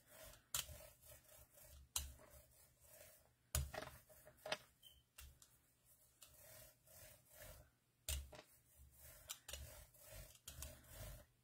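Faint, irregular clicks and light taps of craft tools and paper being handled on a work surface.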